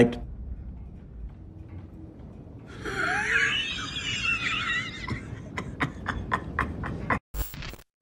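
A man laughing over a low background rumble: a high wavering laugh starting about three seconds in, then a quick run of short bursts of laughter near the end.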